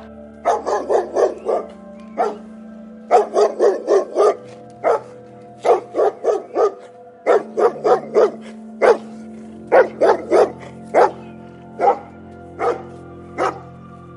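A dog barking over and over, in quick runs of several barks and then single barks spaced about a second apart near the end. Background music with steady held tones runs underneath.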